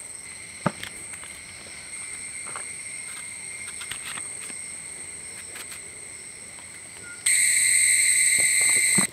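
Insects trilling steadily in a constant high drone, which suddenly grows much louder about seven seconds in. A single sharp click sounds under a second in.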